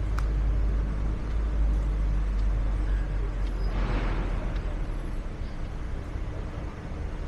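Busy city street traffic: a steady low rumble of buses and cars, with a short hiss that swells and fades about four seconds in.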